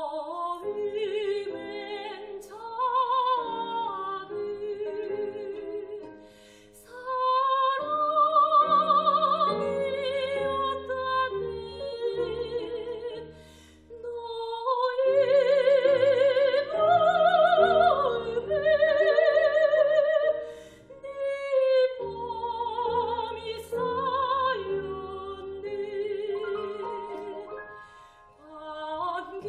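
Soprano singing a Korean art song in operatic style with wide vibrato, accompanied by violin and piano, in phrases separated by short breaths.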